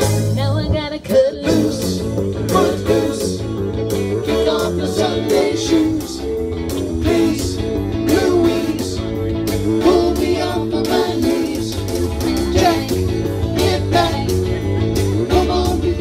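Live rock band playing through PA speakers: electric guitars, keyboard and drum kit, with a steady drum beat.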